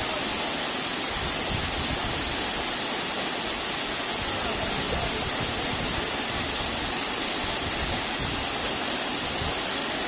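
Waterfall pouring into a rock pool, a steady, even noise of falling water.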